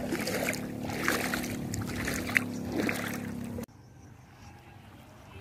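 A boat engine running steadily with a low hum and a few brief clicks over it. About three and a half seconds in, the sound drops abruptly to faint background.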